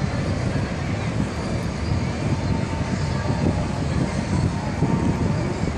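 Steady low rumble of a motor yacht's engines as it cruises slowly past, mixed with general outdoor noise.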